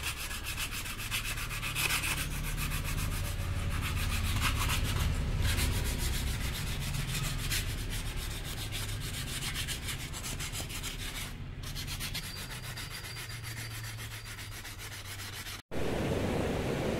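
Teak wood being sanded: a steady abrasive rubbing with a fine, rapid pulse. Near the end it cuts off suddenly and gives way to a different steady hiss.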